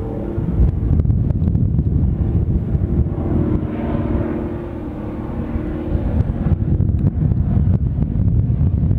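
Engines of a Grumman G-73 Mallard twin-engine amphibian running as it climbs away after takeoff, with a steady engine tone that comes through most clearly from about three to six seconds in. Heavy wind rumble on the microphone lies under it.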